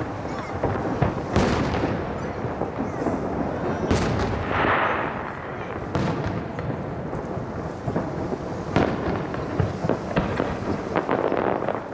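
Aerial firework shells bursting overhead: a sharp boom every two or three seconds, with a continuous low rumble carrying on between the bursts.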